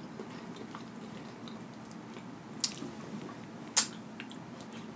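Eating sounds as a sauce-dipped piece of lobster tail is bitten into: soft chewing and squishing, with two sharp clicks, the louder a second or so before the end.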